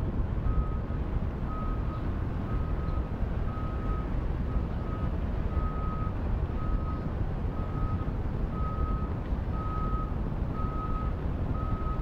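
Steady low rumble of a boat's engine and the water, with a high electronic beep repeating about once a second.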